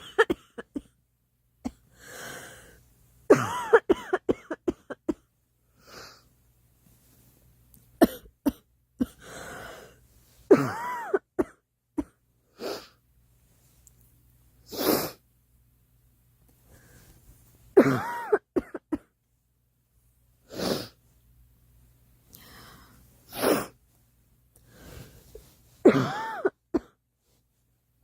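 A girl coughing in about six fits of several quick coughs each, with breaths drawn in between the fits.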